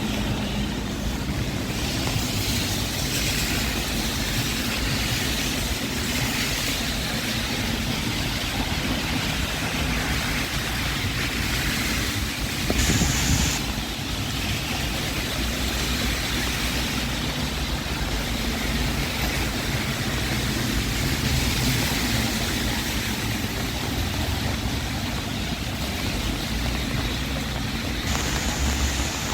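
Busy city street ambience in rain: a steady hiss of rain and wet traffic noise, with a brief louder swell about halfway through.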